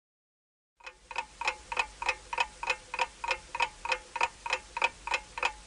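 Clock-ticking sound effect for a quiz countdown timer: sharp, evenly spaced ticks at about three a second, starting about a second in.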